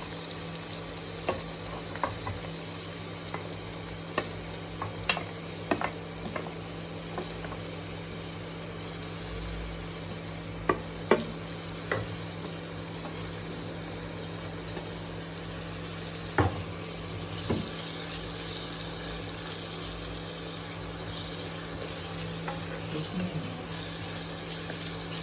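Chopped onion and spring onion frying in hot oil in a pan on an induction cooktop: a steady sizzle, with sharp clicks of a spatula stirring against the pan, frequent in the first half and sparser later, over a steady low hum. The sizzle grows louder in the second half.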